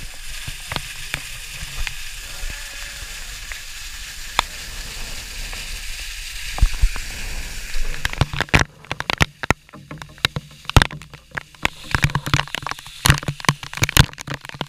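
Falling water from a waterfall hissing steadily. From about eight seconds in, it gives way to loud, irregular splats and knocks as drops and spray strike the camera up close.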